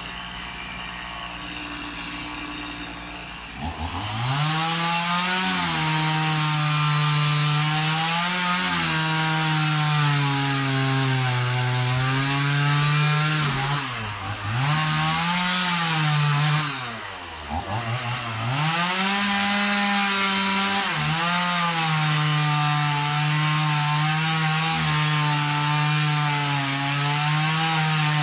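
Two-stroke chainsaw running at a low steady speed, then revved up sharply about four seconds in and held at full throttle while it cuts through a felled coconut palm trunk. Its pitch sags and recovers several times as the chain loads up in the wood, with two deeper dips around the middle.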